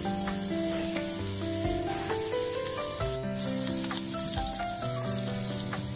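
Chopped onion sizzling softly in oil in a stainless steel pot, sweating gently for a sofrito, under background music that plays a slow melody of held notes.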